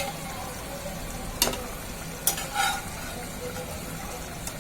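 Fried chicken pieces sizzling in korma spice paste in a pan as they are stirred, with the utensil knocking sharply against the pan a few times, loudest about a second and a half in and just after two seconds.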